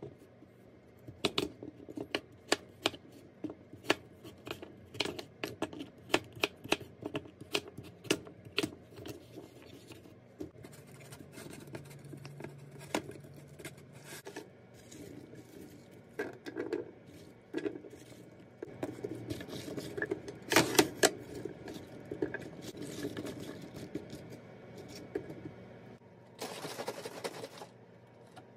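Chef's knife chopping sweet potato on a plastic cutting board, sharp chops about two to three a second for the first ten seconds or so. Later come knocks and clatter of glass baking dishes being handled, and near the end a brief rush of liquid being poured.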